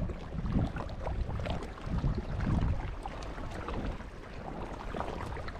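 Small waves lapping and splashing at the rocky water's edge, with many small splashes and trickles over a low wind rumble on the microphone. The rumble swells about half a second in and again around two to three seconds in.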